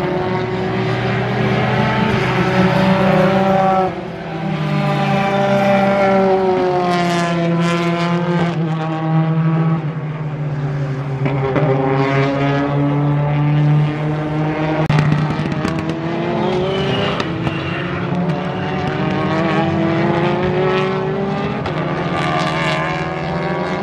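Race truck engines running hard around a circuit. Several engine notes overlap, each rising and falling in pitch as the trucks accelerate and pass.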